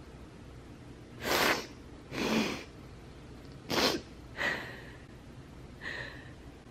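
A woman sniffling and snorting through her nose: five short, sharp sniffs over a few seconds, the last one fainter, a couple with a slight whistle.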